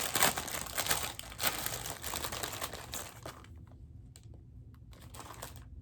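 Packaging crinkling and rustling as it is handled and opened, dense for about three seconds, then a few light scattered ticks and clicks.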